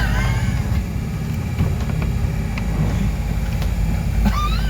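Small motorboat under way on a lake, a steady rumble of motor, hull and water with wind buffeting the microphone. Two brief high-pitched gliding squeals, one at the start and one about four seconds in.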